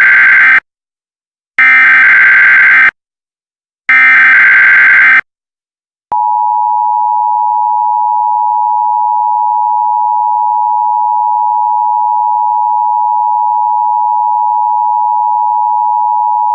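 Emergency Alert System SAME header: three bursts of screechy digital data tones, the first already under way, each about a second long. After a short gap the steady two-tone EAS attention signal starts and holds without a break.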